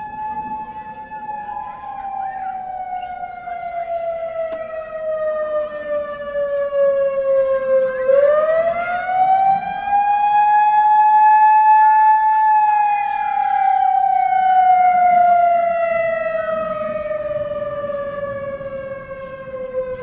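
Whelen WPS 3016 rotating electronic warning siren sounding a wail. A single tone falls slowly, sweeps quickly back up about eight seconds in, holds, then slowly falls again, swelling loudest in the middle as the turning head faces round. The unit is built to be dual tone, but its second tone seems to have faded out over the years.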